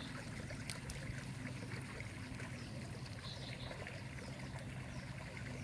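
Light rain falling on the creek water and the surrounding leaves: a steady soft hiss flecked with many small drop ticks. A brief high chirp comes in about three seconds in.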